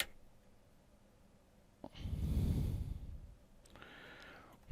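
A man's long, heavy exhale close to the microphone about two seconds in, after a sharp click at the start. Another breath begins near the end.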